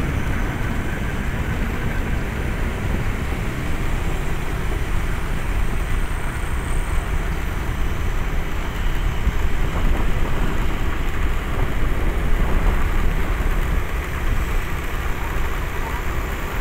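Steady rumble of a vehicle on the move, mostly wind and road noise on the microphone, with no clear engine note standing out.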